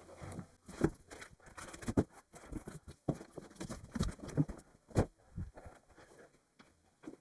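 Unboxing handling noise: an emptied cardboard box being gripped and shifted aside, with rustling and several soft knocks and thumps, the sharpest about one, two and five seconds in.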